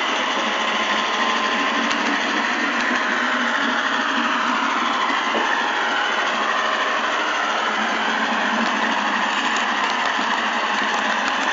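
Model train running along the track, a steady whirring rattle of its small motor and wheels picked up close by a camera riding on the train, with a few faint clicks near the end.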